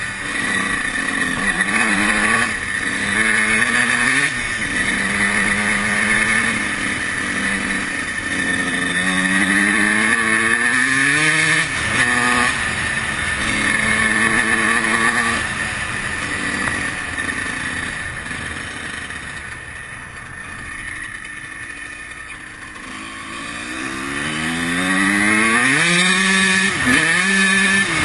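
2003 Honda CR125's 125 cc two-stroke single-cylinder engine being ridden hard, its pitch repeatedly rising and falling as the throttle is opened and closed. It drops to a quieter off-throttle stretch about twenty seconds in, then revs up again with quick rises and falls near the end.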